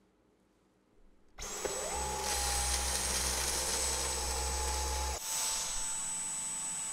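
Dyson V11 Animal cordless stick vacuum switching on, its motor spinning up with a rising whine and then running with a steady high whine. A low rumble runs with it while the motorised brush head is on carpet and drops away a little after five seconds in, as the head moves onto a hard wooden floor.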